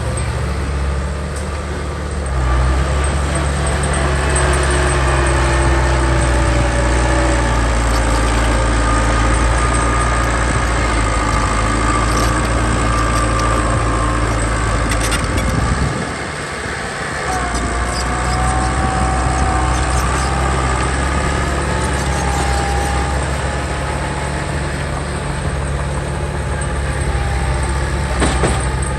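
Heavy diesel machinery running steadily, with a slowly wavering whine above the low engine sound, which dips briefly about halfway through.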